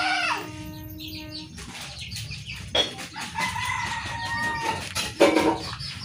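Rooster crowing: a held call that ends about a second and a half in, then another drawn-out call about three seconds in. A few light knocks fall between the calls.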